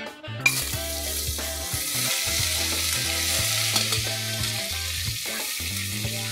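Raw mutton pieces going into hot oil in a stainless steel pressure cooker: a sudden sizzle starts about half a second in, then holds steady as the meat fries and is stirred with a spoon.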